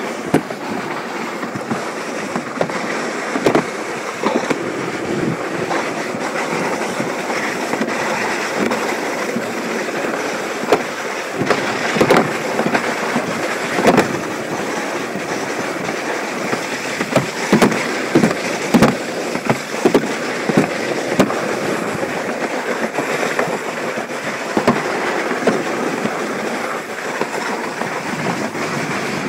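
Alpine slide sled running down the track: a steady rattling rumble with sharp knocks now and then, several coming close together in the second half.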